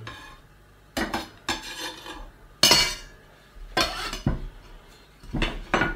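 Metal kitchen utensils and a stainless steel mixing bowl knocking and clinking on a wooden cutting board: several separate short clatters a second or so apart.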